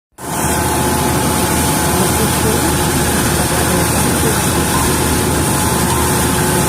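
Engine-driven wheat threshing machine running steadily, a continuous engine drone under the even rush of the machine.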